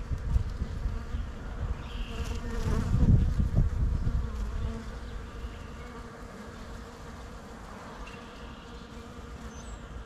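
Honeybees buzzing steadily as they forage among the flowers of a bush. A low rumble in the first half, loudest about three seconds in, then fades.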